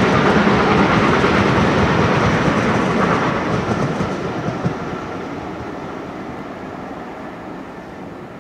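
Coaches of a twelve-coach train rolling past, their wheels running on the rails, the sound fading steadily as the last coach goes by and the train draws away.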